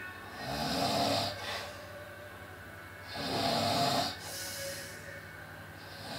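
A sleeper snoring heavily: a loud, rattling snore about every three seconds, two in full and a third starting at the end, with a softer breath between each.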